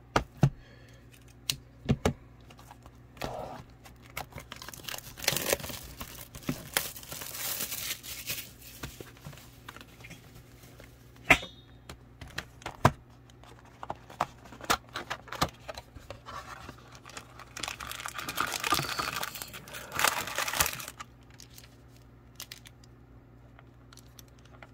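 A retail box of trading cards being torn open and unpacked by hand: two long stretches of tearing and crinkling of the wrapping, cardboard and foil card packs, with scattered sharp taps and knocks from handling.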